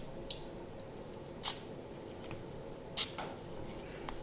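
Faint handling sounds of tissue paper and a small glass perfume bottle: soft paper rustle with a few light clicks and taps, the clearest two about a second and a half apart.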